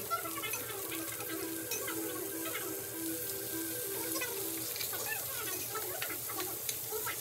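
Pork and seafood sizzling on a tabletop grill, with the light clicks of metal tongs, under quiet background music.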